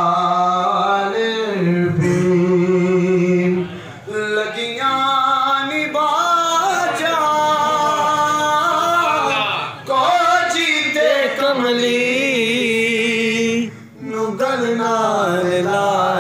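A man sings a Punjabi naat solo and without instruments into a microphone. He sings long, drawn-out phrases with wavering held notes, and takes short breaks for breath about four, ten and fourteen seconds in.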